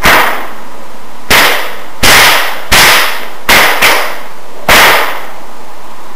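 A 6-foot Noreast bullwhip cracking seven times in a quick routine: sharp reports roughly half a second to a second apart, two of them close together in the middle, each with a brief echo from the large hall.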